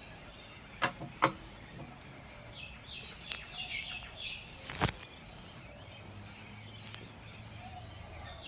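Three sharp knocks of metal parts being handled during assembly, two close together about a second in and one just before the five-second mark. Small birds chirp in the background in between.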